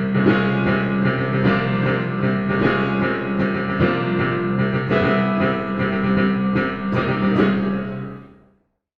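Music with a steady low held tone under a run of quick notes, fading out over the last second and ending about eight and a half seconds in.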